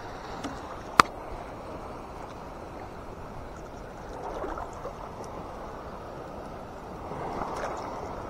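Shallow seawater sloshing and splashing around a fishing net being handled by hand. A single sharp click about a second in, and the splashing swells twice, around four and again seven seconds in.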